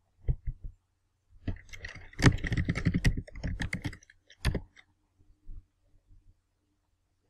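Typing on a computer keyboard: a few separate key clicks, then a quick run of keystrokes for about two and a half seconds, and one more click a little after.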